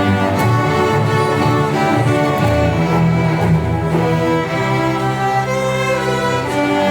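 String orchestra playing slow, held chords on bowed strings.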